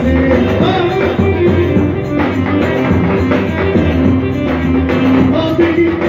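Lively dance music played live on an electronic arranger keyboard, with a steady bass and beat under a melody line.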